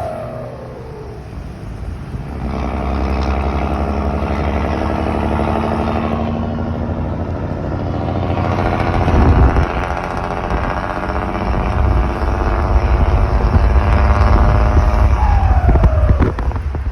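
Mercedes-Benz OM 366 six-cylinder diesel engine of a truck running with a rumble. Its note gets louder about two seconds in and again about nine seconds in. A short falling whine comes near the end, followed by a few sharp clicks.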